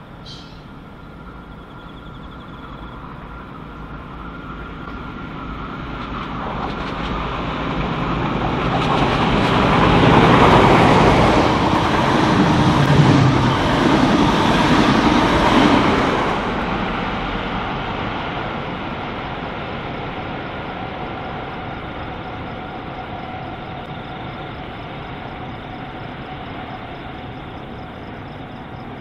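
NSW TrainLink XPT passenger train, with diesel-electric power cars, passing through at speed. Its rushing noise builds over several seconds, is loudest for about seven seconds as it goes by, then slowly fades as it moves away.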